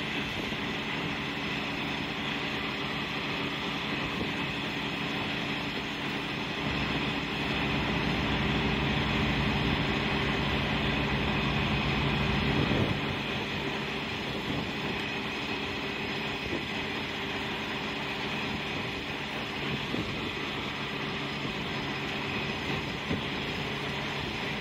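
Sterling hook lift truck's Detroit Diesel Series 60 engine running steadily to power the hydraulics as the hook arm is moved. It gets louder about a third of the way in and drops back about halfway through.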